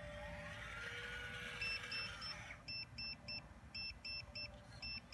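Hydraulic pump motor of a full-metal RC CAT 336 excavator whining up in pitch, holding, then winding down as the upper structure swings. From about a second and a half in, groups of three short high beeps repeat about once a second: the low-battery alarm as the battery runs out.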